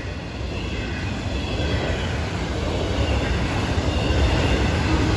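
Florida East Coast Railway freight train of autorack cars rolling past: a steady rumble of steel wheels on rail that grows gradually louder, with a faint high squeal of wheels.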